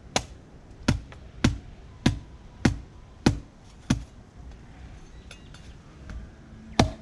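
Blade chopping into a coconut shell: seven sharp strikes in a steady rhythm, a little more than one a second, then a pause and one more strike near the end.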